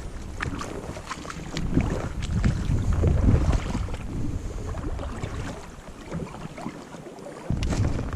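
Gusty wind buffeting the microphone, with scattered clicks and knocks.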